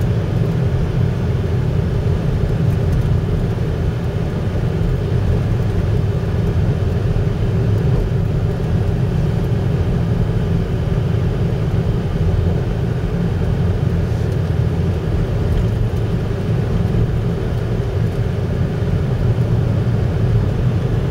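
Engine and road noise of a car driving along a winding mountain highway: a steady low rumble that holds even throughout.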